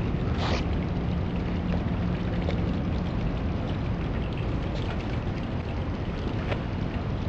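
Water rushing through plastic water pipes, a steady low rumble, with two short clicks, about half a second in and again near the end, as the small sensor capsule carried by the flow knocks against the pipe at its bends.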